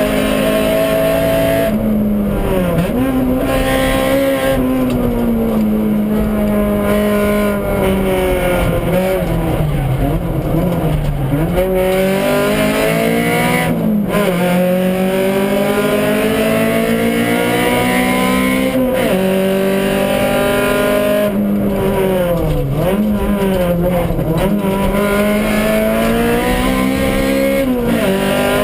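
Honda Civic Type R rally car's four-cylinder engine heard from inside the cabin, driven hard: its pitch climbs and drops back again and again through gear changes and lifts.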